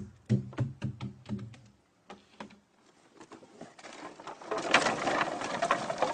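Liquid glugging out of a five-gallon can in quick low pulses, about three a second, for the first two seconds. After a short pause comes a hissing noise full of small clicks that grows louder over the last couple of seconds.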